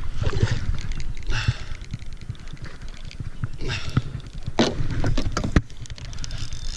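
Thumps, knocks and rubbing from moving about in a small boat while landing a hooked smallmouth bass with a net, with a few short hissing bursts and a sharp knock about four and a half seconds in.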